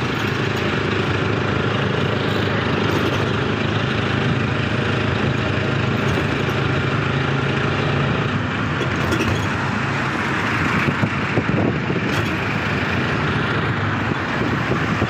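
Steady rumble and rattle of a passenger train running, with a few light clicks near the middle.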